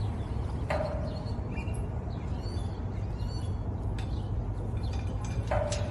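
Small birds chirping over a steady low rumble, with two short ringing clinks, about a second in and near the end, from the flag's clips being handled at the metal flagpole.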